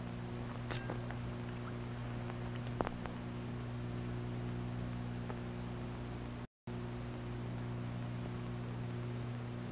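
Steady electrical hum and hiss of an old optical film soundtrack, with a few faint clicks and crackles, the loudest a little under three seconds in. The sound cuts out completely for a moment about six and a half seconds in.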